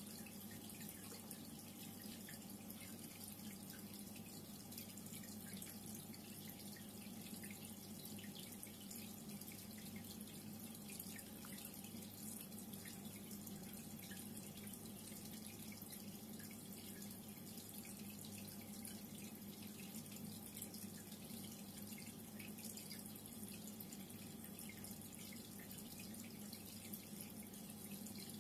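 Reef aquarium water circulation: a steady trickle of splashing, dripping water over a low, steady pump hum.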